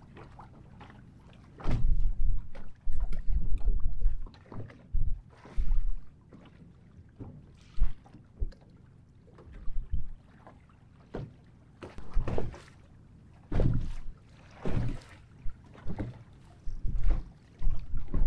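Small waves slapping against the hull of a bass boat in irregular bursts, one every second or two.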